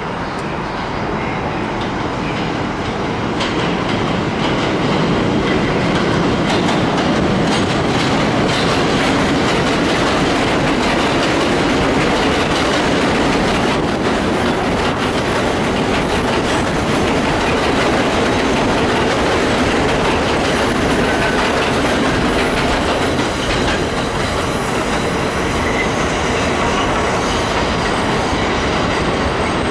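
R62A subway express train passing at speed on elevated track, its wheels running and clattering over the rail joints. The sound swells over the first few seconds as the train draws near, then holds steady as the cars go by, with brief faint wheel squeals in the second half.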